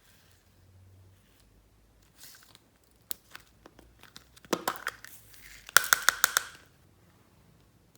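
Glossy slime being squeezed and stretched by hand: sticky crackling with scattered clicks, then a quick run of about seven sharp pops a little before six seconds in.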